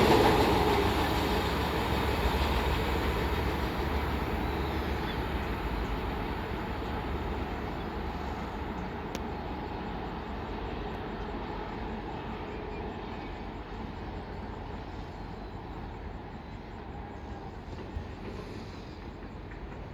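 Passenger express train rolling past, its rumble dying away steadily as the train moves off.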